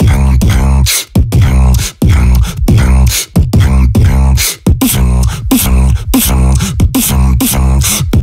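Human beatboxing into a handheld microphone: deep, sustained bass lines under sharp snare-like hits at a steady pace of about two a second, with pitched tones that slide downward after many of the hits.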